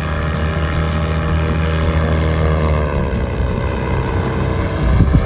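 Paramotor's small engine and propeller running as it flies overhead: a steady drone that drops in pitch about three seconds in.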